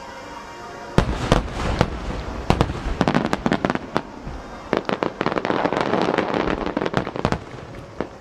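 Aerial firework shells bursting: a run of sharp bangs starts about a second in and thickens into a dense crackling barrage, easing off near the end, with music playing underneath.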